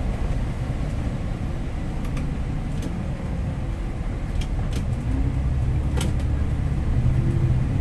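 MAN Lions City 15-metre city bus heard from the driver's cab, its diesel engine running with a steady low rumble while driving. In the last few seconds the engine note rises and grows louder as the bus pulls ahead. A few sharp clicks and rattles from the cab fall in between.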